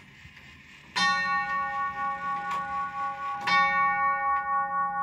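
Chime tubes of a tubular grandfather clock struck twice, about a second in and again past the middle, each note ringing on long after the strike.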